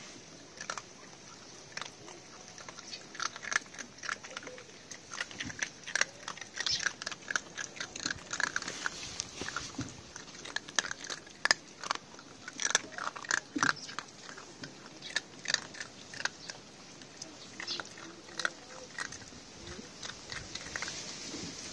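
Puppies eating dry dog kibble off a concrete floor, chewing the pellets with many irregular, sharp crunches.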